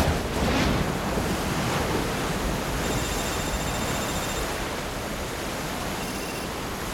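Storm at sea: a thunderclap at the start, then heavy waves and wind churning steadily.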